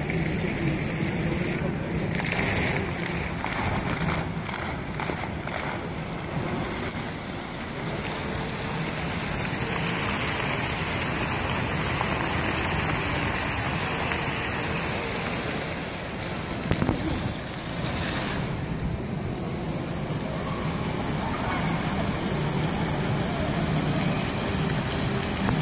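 Indoor fountain's water jets splashing back into a shallow pool, a steady rush of falling water, with a murmur of people's voices under it.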